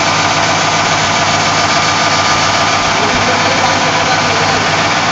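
Seam welding machine running as a sheet-metal shell is welded between its electrodes: a loud, steady buzzing drone with hiss.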